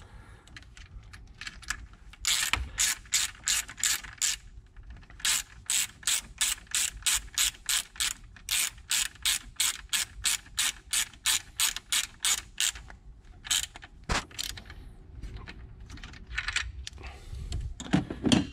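Hand socket ratchet clicking as a bolt is tightened back down on the engine, in runs of evenly spaced clicks, about two or three a second, with short breaks between runs. The clicking stops about fourteen seconds in.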